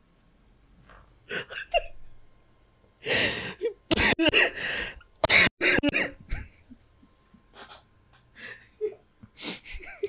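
A man coughing and gasping for breath in harsh bursts: a short fit about a second in, a long loud run of coughs from about three to six and a half seconds, and a few smaller ones near the end.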